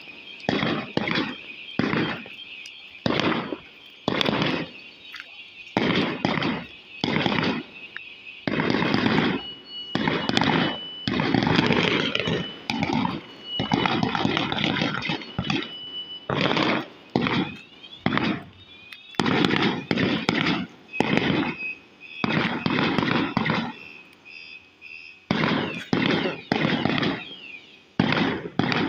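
Fireworks exploding in rapid succession, dozens of sharp bangs, some spaced out and some in quick clusters. High steady and warbling tones sound behind the bangs at times.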